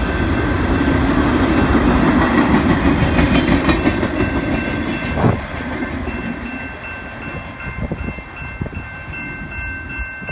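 Freight train of autorack cars rolling past, wheels clattering over the rails, with a single sharp thump a little past halfway; the rumble fades once the last car passes and moves off. A level-crossing bell rings steadily throughout.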